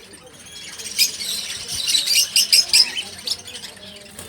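Small cage birds chirping in a dense run of rapid, high-pitched calls, busiest from about a second in until past three seconds.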